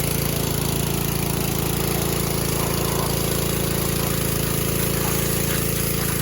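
Small gasoline engine of a pressure washer running steadily at constant speed, with a steady hiss above it.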